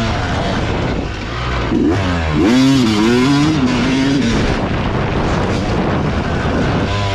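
Yamaha dirt bike engine under riding load, the revs rising and falling several times as the rider works the throttle, highest about two to three seconds in. Wind rushes across the microphone throughout.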